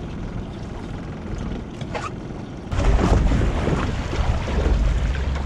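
Low steady rumble aboard a small boat on open water, then a little under three seconds in it turns suddenly louder: wind buffeting the microphone, with water sloshing and splashing at the side of the boat.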